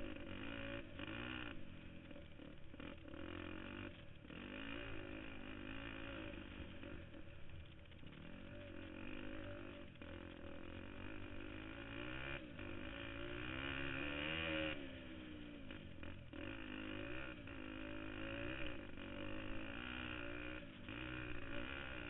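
KTM 250 XC-F four-stroke single-cylinder dirt bike engine running on the trail, its revs rising and falling constantly with the throttle. The revs climb to a peak about fourteen seconds in, then drop sharply.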